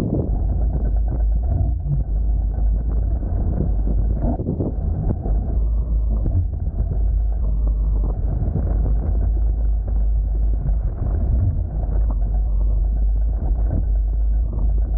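Steady low wind rumble buffeting the Insta360 ONE X2 camera's microphone while sailing a beach catamaran, with no clear separate events.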